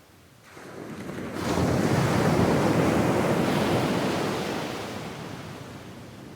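A single medium wave breaking on a sandy beach and washing up the sand. It swells from about half a second in, turns into a hissing rush at its peak a second or so later, then slowly fades away.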